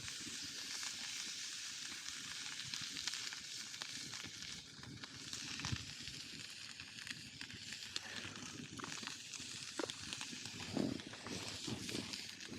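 Wood campfire crackling, a steady hiss with scattered small pops and snaps.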